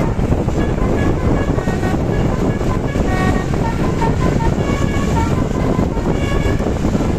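Bus basuri telolet horn playing a melody of short tooting notes that change pitch from one to the next. A heavy rumble and wind noise run underneath.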